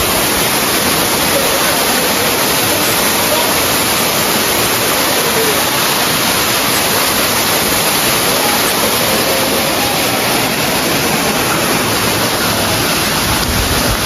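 Waterfall pouring steadily: a loud, unbroken rush of falling water.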